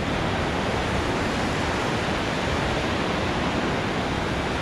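Ocean surf breaking and washing on a sandy beach, a steady even rush with no single wave standing out.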